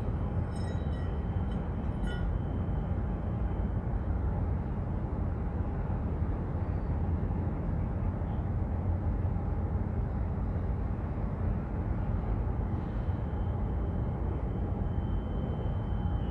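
Steady low rumble of harbour background noise with a faint steady hum running through it, and a few short high chirps or beeps in the first two seconds.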